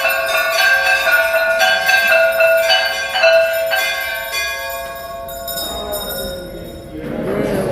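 Temple bells struck repeatedly, the metallic strikes overlapping and ringing on; the strikes stop about five seconds in and the ringing dies away.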